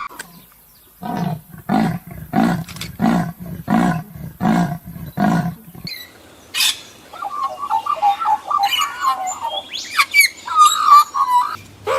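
A large animal giving a series of about seven short, evenly spaced deep calls, then, about halfway through, a different clip of birds chirping.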